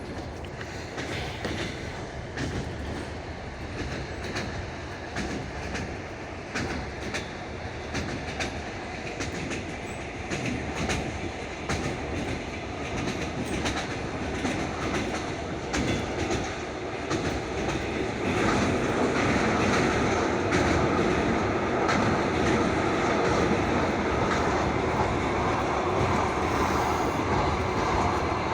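Passenger train running on the rails, its wheels clicking over the rail joints above a steady rumble. The rumble grows louder about two-thirds of the way in.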